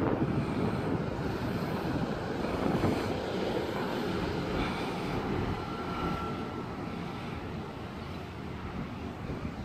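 Articulated city bus driving past and pulling away, its engine and tyre noise slowly fading.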